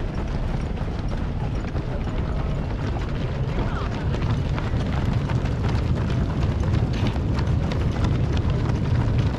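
Footsteps of a dense crowd of marathon runners on the road, many shoes slapping in a continuous patter over a low rumble.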